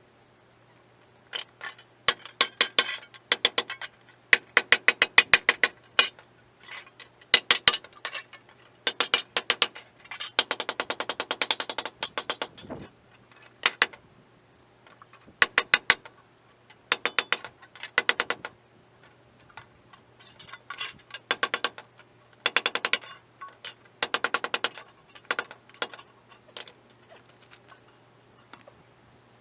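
A ratchet wrench clicking in repeated short bursts of rapid, evenly spaced clicks, with a longer run of clicking near the middle, over a faint steady low hum.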